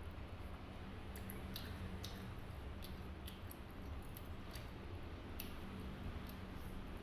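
A person eating pork noodle soup: faint chewing with scattered small clicks, over a steady low hum.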